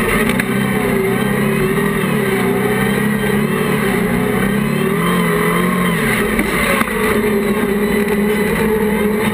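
Class 1 off-road racing buggy's engine heard from on board, revving up and down as the car is thrown through the turns, with a drop in revs about six seconds in.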